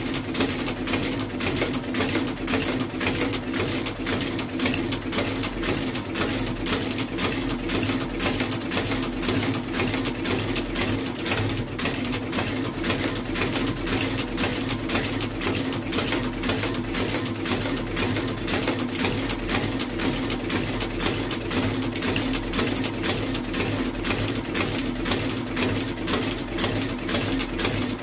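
Industrial sole-stitching machine running steadily, stitching the new leather outsole to the shoe's welt: a constant motor hum under a rapid, even clatter of needle strokes, several a second.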